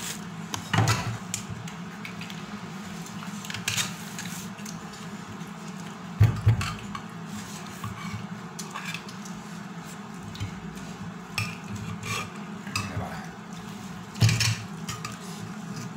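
Eating from a steel plate: scattered clinks, taps and scrapes of fingers and a spoon on the plate, with louder knocks about six seconds in and again near the end, over a steady low hum.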